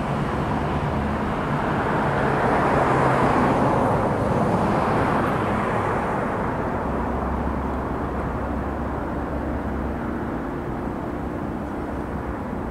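Distant engine noise that swells over the first few seconds and then slowly fades, over a steady low hum.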